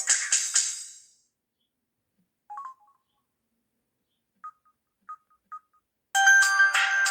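Samsung SGH-F480 mobile phone playing ringtones through its speaker. A bright, fast-pulsing ringtone fades out in the first second, a few short electronic beeps sound, and a new ringtone with several tones and a steady beat starts loudly about six seconds in.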